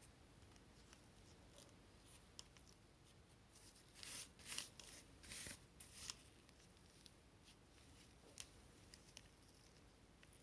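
Quiet handling of cordless stick vacuum parts: scattered light clicks, with a short run of four or five scraping, rustling strokes about four to six seconds in.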